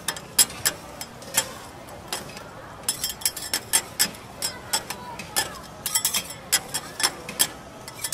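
Metal spatulas clacking and scraping on a steel flat-top griddle as shrimp, onions and greens are scooped and tossed: sharp irregular clicks, several a second, over a steady sizzle.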